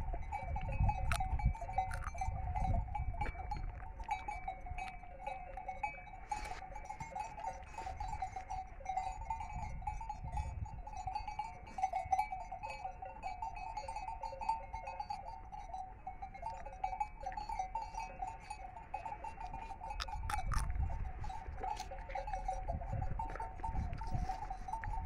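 Merinolandschaf sheep flock on pasture, with sheep calls over a steady wavering mid-pitched tone throughout. A low rumble on the microphone comes near the start and again near the end.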